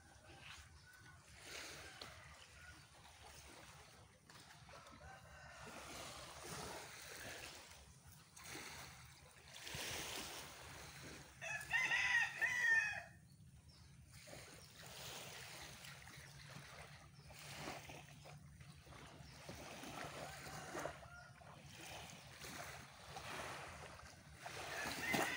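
A rooster crowing: one loud call about halfway through and another beginning near the end, over a faint steady outdoor hiss.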